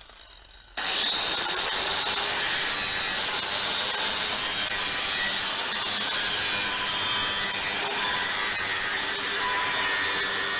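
Angle grinder with a cutting disc slicing through a precast reinforced concrete bar and its steel rebar. It starts suddenly about a second in and runs steadily, a loud grinding hiss with a high whine over it.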